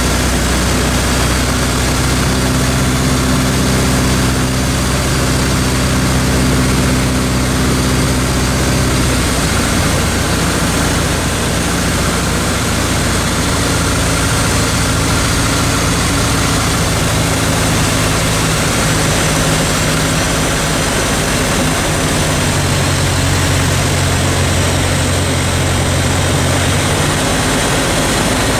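Light single-engine aircraft's piston engine and propeller running, heard inside the cockpit over steady airflow noise, on approach to land. About nine seconds in the engine note drops to a lower pitch as power is reduced.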